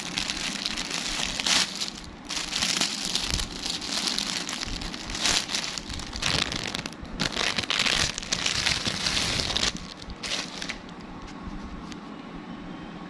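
Packaging being handled and opened, crinkling and rustling in irregular bursts; it stops about eleven seconds in, leaving a quieter steady background.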